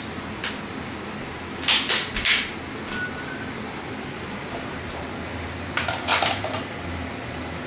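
Metal clicks and clacks of a Springfield M1A rifle being handled after reassembly: one just after the start, three close together about two seconds in, and another cluster about six seconds in.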